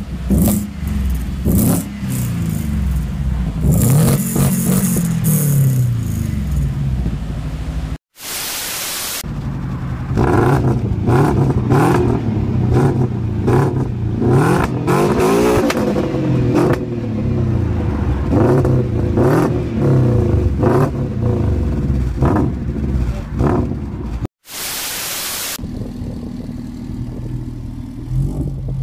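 Lada Priora four-cylinder engines with loud aftermarket exhausts, revved in turn: the engine note rises and falls with throttle blips, with sharp cracks between revs, and settles to a steady idle near the end. Twice a short burst of hiss breaks in between clips.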